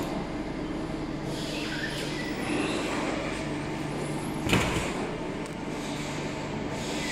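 Steady hum of workshop machinery, with one sharp clunk about four and a half seconds in as the manual screen-printing press frame is handled.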